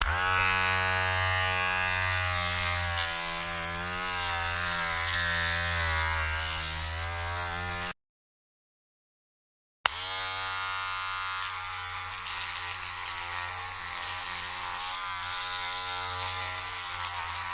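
Electric hair trimmer running with a steady, slightly wavering buzz. It stops about eight seconds in and starts again with a click about two seconds later.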